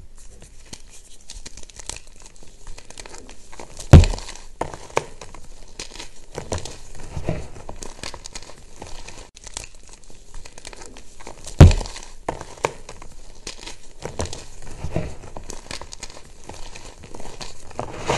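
Hands crushing and crumbling reformed gym chalk bars into chalk chunks and powder: a steady crackle of small crunches and crumbles. Two loud thumps stand out, about four seconds in and again some eight seconds later.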